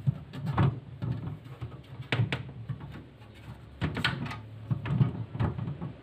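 Hard plastic fridge-interior parts clicking and knocking as a hand tugs at a removable plastic piece in the compartment, trying to pull it out: a series of short, sharp knocks at irregular intervals.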